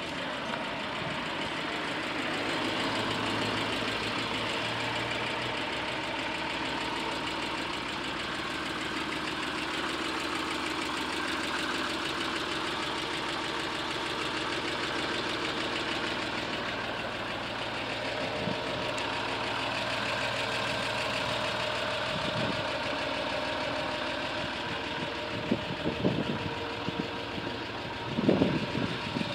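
Range Rover Sport's 2.7-litre V6 turbodiesel idling steadily, heard from outside the car, with a few brief low thumps near the end.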